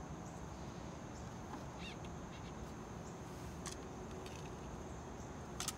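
Light clicks of hard plastic pool-cleaner parts and a screwdriver being handled, the sharpest click near the end. Behind them is a faint outdoor background with a steady high whine and a short bird chirp about two seconds in.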